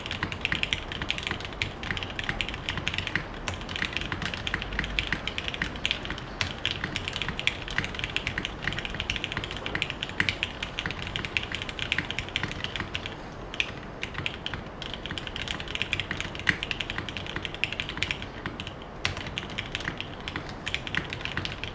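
Continuous typing on a Geonworks F1-88 custom mechanical keyboard with lubed Cherry Hyperglide Black linear switches, an aluminium plate and GMK doubleshot ABS keycaps: a dense, quick stream of key clacks with a couple of short pauses.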